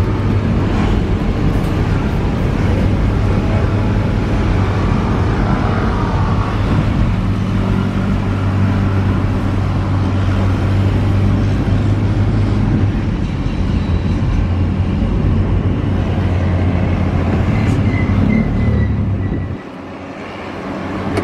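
Engine and road noise inside a moving car's cabin: a steady low drone under a wide rushing noise. Near the end it drops sharply and thins for about a second.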